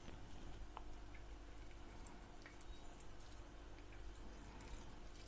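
Fresh lime juice dripping into the salad bowl as a lime is squeezed by hand: a few faint, separate drips over a low steady hum.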